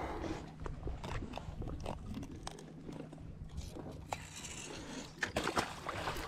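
Hands unhooking a fish from a bucktail jig: scattered clicks, scrapes and handling noises over a steady low hum. A splash comes near the end.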